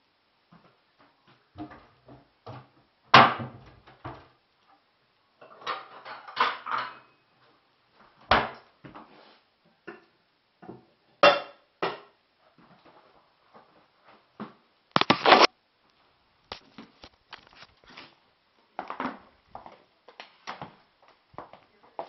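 Dishes and kitchenware being handled at a kitchen counter: irregular clinks and knocks, with a few louder clatters.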